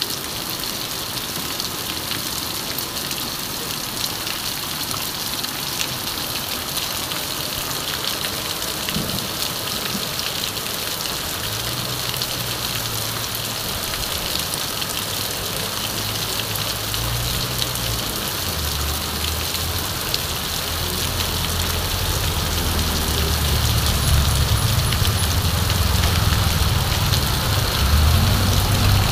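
Heavy rain pouring onto a wet street and pavement, a steady hiss. In the second half the low rumble of passing motorcycles and a car comes in and grows louder toward the end.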